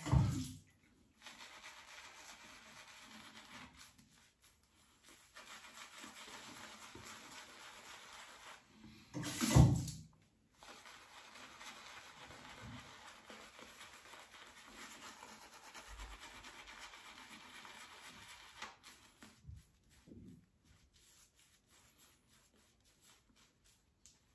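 Synthetic shaving brush working lather on a stubbly face: soft, steady scratchy rubbing in long stretches, broken by one brief loud noise about nine seconds in. The rubbing stops a few seconds before the end.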